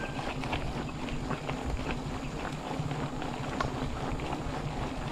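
Mountain bike rolling over a rough trail: a steady rumble with many irregular clicks and rattles from the bike, and wind rumbling on the microphone.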